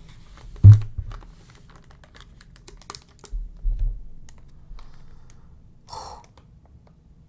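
Scattered clicks and taps from a small 60% computer keyboard being handled, with a heavy thump just under a second in, softer knocks around the middle and a brief rustle near the end.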